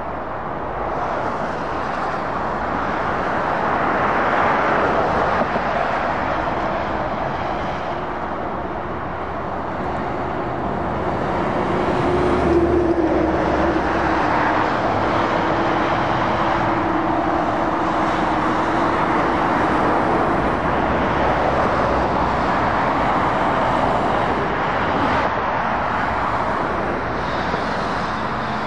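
Road traffic passing: heavy diesel lorries and cars going by, the tyre and engine noise swelling and easing as each one passes. About twelve seconds in, a steady engine hum stands out for several seconds as a lorry goes by.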